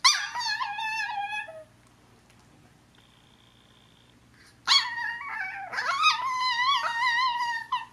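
A Chihuahua's high-pitched, warbling whine-talk in two bouts, the second longer and starting about halfway; the pitch wobbles up and down throughout. It is her way of asking the other dog to play.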